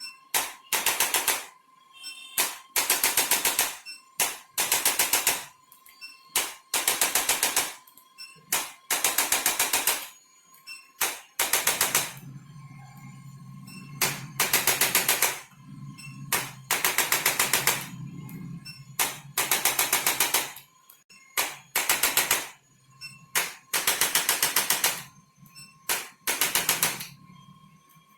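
Handheld chiropractic percussion adjusting instrument firing repeated bursts of rapid mechanical taps, each burst about a second long and coming every couple of seconds, about a dozen in all. A faint steady high tone runs underneath.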